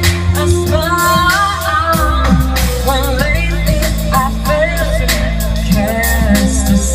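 Live band playing through a PA: a singer's melody over guitar and drums, with sustained low bass notes that change every second or two.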